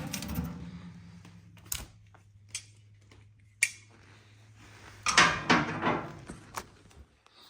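A few sharp knocks and clinks of household objects being handled, with single ones in the first half and a quick cluster of them a little after five seconds.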